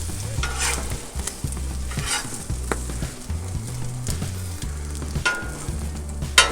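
French toast frying in bacon grease on a Blackstone flat-top griddle, a steady sizzle, with a metal spatula scraping the griddle top in short strokes and a sharp clank near the end.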